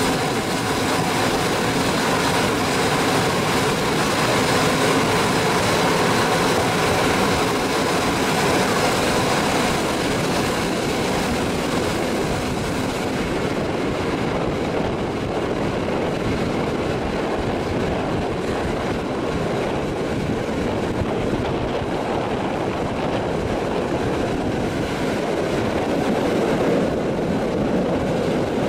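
Passenger train running along the track, heard from an open carriage window: a steady rush and rumble of the wheels on the rails. The sound turns a little duller about halfway in.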